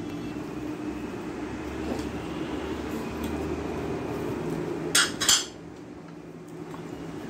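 Two sharp clinks about a third of a second apart as a small dish is set down among the tableware, over a steady low hum.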